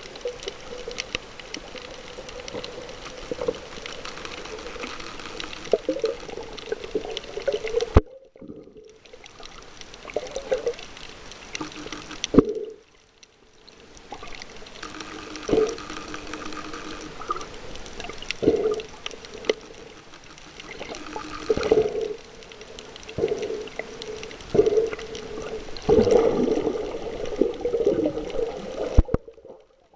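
Muffled underwater water noise picked up by a submerged camera: sloshing and gurgling with an irregular swell every second or two. It drops out briefly three times.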